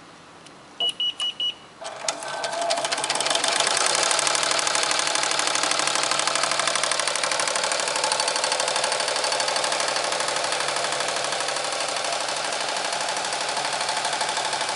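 Melco EMT10T ten-needle commercial embroidery machine: four short beeps, then about two seconds in it starts stitching. The needle rhythm speeds up over the next couple of seconds and then runs fast and steady.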